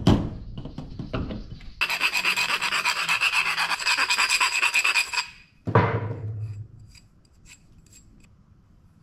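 Quick, regular rasping strokes of a hand tool worked against the hollow tube taken from a sunbed, lasting about three seconds. They are followed by a knock with a short ring, and a few faint taps near the end. There is another knock at the very start.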